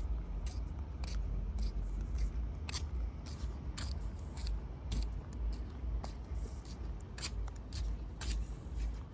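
Outdoor ambience: a steady low rumble with irregular short, crisp ticks, one to three a second.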